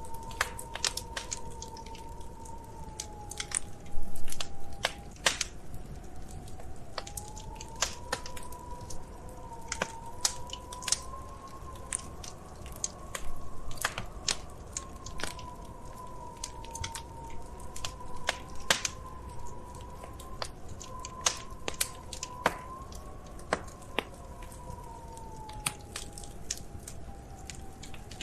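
Wood fire crackling, with frequent sharp pops and snaps and a louder flurry about four seconds in, over a thin whistling tone that wavers slowly in pitch.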